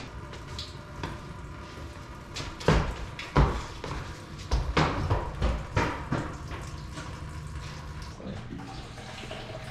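Shop work noises around a truck: a handful of loud clunks and knocks of tools and equipment, most of them between about two and a half and six seconds in, over a steady low hum.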